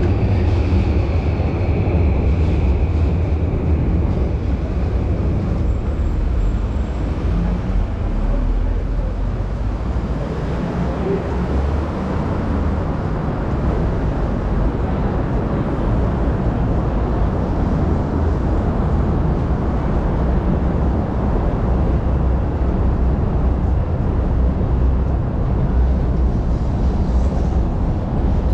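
Steady low rumble of city traffic and elevated railway trains heard beneath the viaduct. A faint high tone fades out in the first few seconds.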